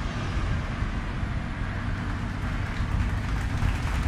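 Pickup truck driving off towing an empty tandem-axle boat trailer across grass: a steady low engine and rolling rumble.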